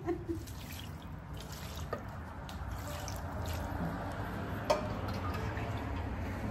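Water poured from a clear jug into a large steel pot of raw spiced beef, trickling and splashing onto the meat. There is a sharp knock about three-quarters of the way through.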